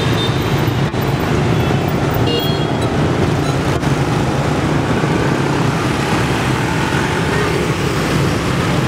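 Dense city street traffic, mostly motorbikes and scooters, passing in a steady stream of engine and road noise.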